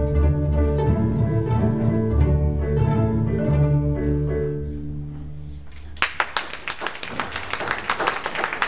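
A student string ensemble of violins, cellos and double basses playing, the music fading out on a final note about six seconds in. The audience then breaks into applause.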